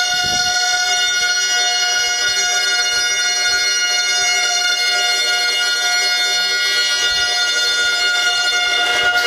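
A reedy wind instrument holding one steady chord of several notes, the chord shifting near the end.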